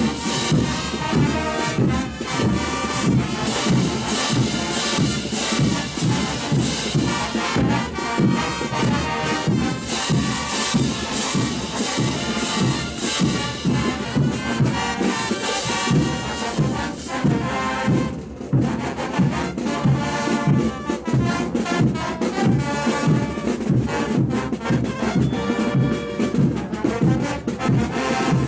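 Marching brass band playing: brass instruments over bass drums and crash cymbals keeping a steady beat.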